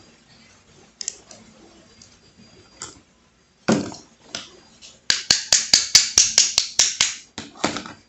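Yale brass padlock being reassembled by hand: metal clicks and knocks as the shackle, with its new spring, is worked in the lock body. A single knock comes about halfway through, then a quick run of about a dozen sharp clicks, about six a second, near the end.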